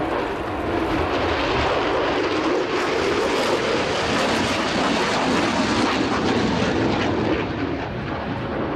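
Jet roar from the F-22A Raptor's twin Pratt & Whitney F119 turbofans as the fighter flies past. The roar builds to its loudest midway, then eases off and loses its hiss near the end.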